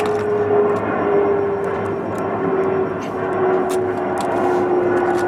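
A steady engine drone whose pitch falls slowly and evenly, with light clicks and taps scattered over it.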